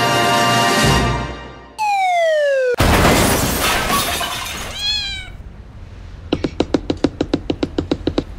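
A string of cartoon sound effects: a held brass chord ends about a second in, followed by a falling whistle glide, a loud crash with breaking glass and a short cat yowl, then a quick run of clicks, about eight a second, near the end.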